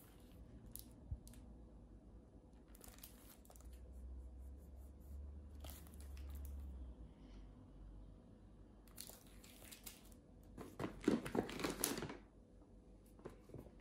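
Rustling and crinkling as shop items are handled and set down among plastic snack packets, with short scattered rustles and a louder spell of crinkling near the end.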